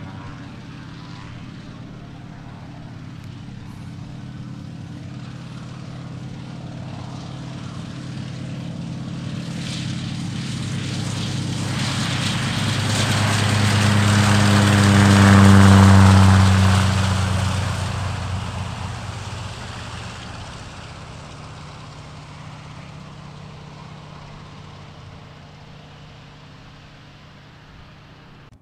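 Propeller piston engine of an agricultural biplane running steadily as the plane passes. The drone grows louder to a peak about halfway through, drops a little in pitch as it goes by, then fades away.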